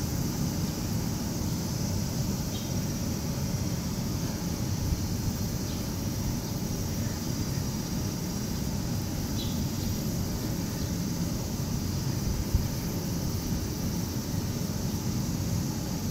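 A steady low rumble at an even level, with a few faint, short high chirps.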